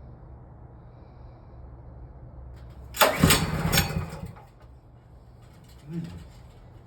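A pull on the recoil starter of a Hart 3600-watt gas generator: the engine cranks briefly for about a second, starting about three seconds in, and does not catch.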